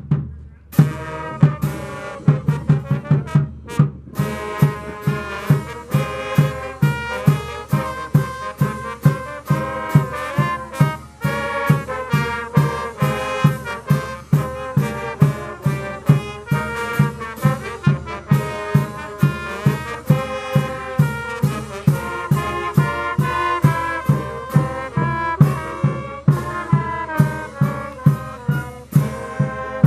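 A brass band of trumpets, sousaphones and flutes playing a tune over a steady drum beat.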